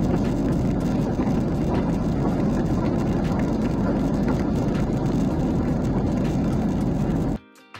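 Steady cabin noise of a jet airliner in flight, heard from a window seat: a dense low rush of engine and airflow noise over a constant low hum. It cuts off suddenly near the end, where soft music starts.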